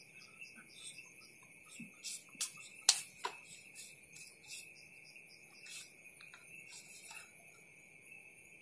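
Steady night insect chorus, crickets trilling on one continuous high note, with scattered short high chirps and ticks and one sharp click about three seconds in.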